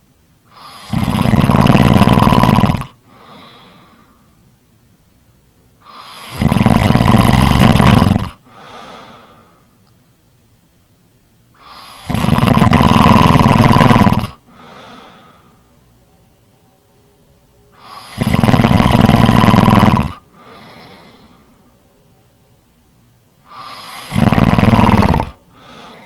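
Loud, rhythmic snoring: five long snores about six seconds apart, each followed by a brief, fainter breath.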